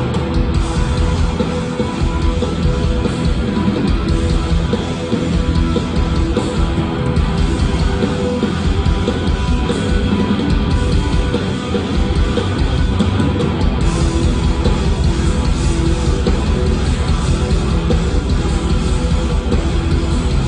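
Hardcore punk band playing live at full volume: distorted electric guitars, bass and drums.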